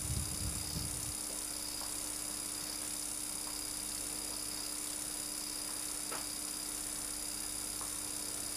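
Steady hum and hiss of a camcorder recording in a quiet room, with low handling bumps in the first second and a faint click about six seconds in.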